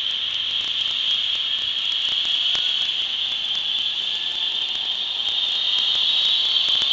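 Trauma helicopter's turbine engines running on the ground with a steady high-pitched whine, while fainter tones slowly rise in pitch and the sound grows a little louder as the helicopter winds up for takeoff.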